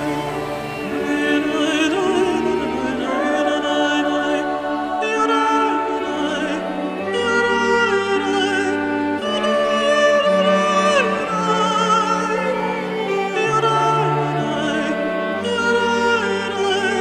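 Background music: a slow melody of long notes sung or played with vibrato, over held low notes that change every second or two.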